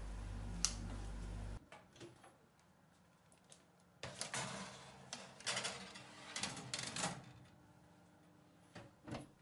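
A steady low hum that cuts off about one and a half seconds in. Then, from about four seconds in, a run of metallic clicks, knocks and scrapes as a metal baking tray with a steel cake ring is slid onto the oven's wire rack, with a couple of small clicks near the end.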